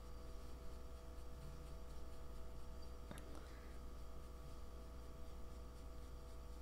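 Quiet room tone: a steady low hum with faint steady tones above it, and a single light click about three seconds in.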